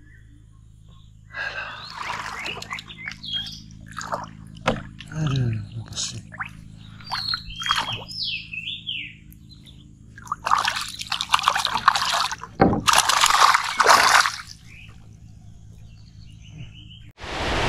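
Swamp sounds: scattered short water splashes and knocks, a few high wavering calls and two longer rushing noises, over a faint steady low hum. Near the end heavy rain starts abruptly as a loud, even hiss.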